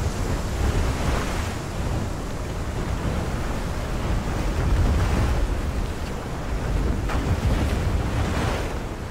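Sound effects of rushing storm-surge floodwater and storm wind: a continuous deep rumble with a hiss of spray that swells and fades several times.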